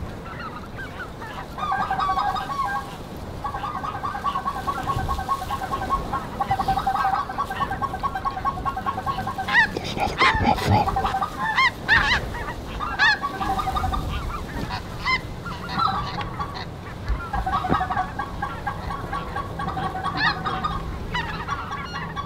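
A chorus of many geese calling at once, overlapping honks and yelps, with a few louder, sharper calls about ten to twelve seconds in.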